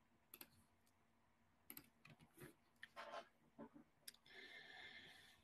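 Near silence, with a few faint, scattered computer mouse clicks.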